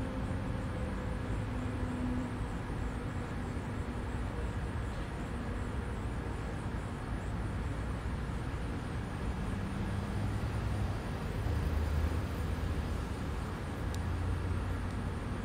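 Steady low outdoor background rumble with a faint, wavering hum and no distinct events.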